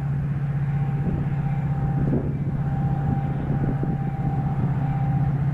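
EMD F40PH diesel-electric locomotive, a 16-cylinder EMD 645 two-stroke diesel, approaching at the head of a commuter train, its engine giving a steady, unwavering drone over the rumble of the train on the rails.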